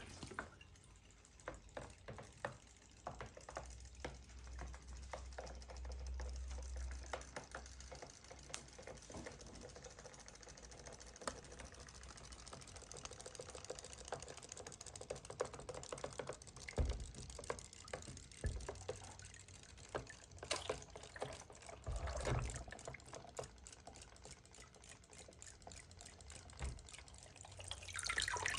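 Irregular small clicks, taps and light rattling from a die-cast toy model car being handled, with a few louder knocks along the way.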